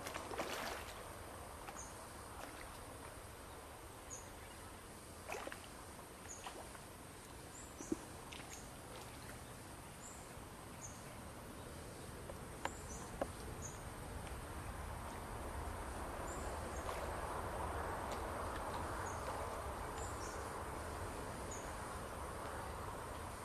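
Outdoor countryside ambience: short high chirps of insects or birds repeating about once a second over a steady hiss, with a few sharp clicks. The hiss swells in the second half.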